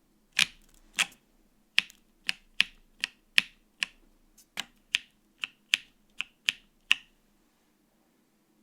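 Keystrokes on a custom mechanical keyboard with lubed Holy Panda tactile switches on a polycarbonate plate, with no foam in the case and double-shot ABS keycaps. They come as separate presses, about two to three a second, and stop about seven seconds in.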